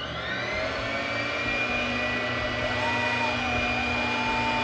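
Electric sewing machine motor running at full speed while winding a bobbin, a steady high whine that climbs to speed right at the start.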